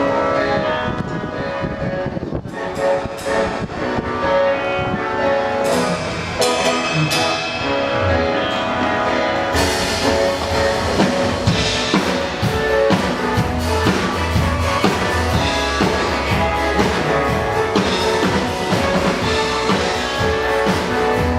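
Instrumental pop band music with drums, guitar and bass, an intro with no singing. It opens with scattered drum and cymbal hits, and about ten seconds in the full beat comes in with a heavy bass line.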